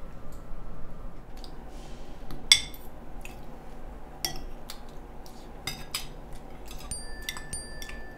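Metal spoons and forks clinking and scraping on ceramic dinner plates at irregular intervals, with one sharper clink about two and a half seconds in and a brief ringing clink near the end.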